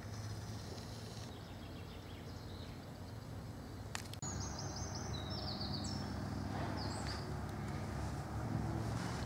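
Outdoor background noise with a steady low hum. About four seconds in there is a click, and after it a songbird sings several quick, high chirping trills.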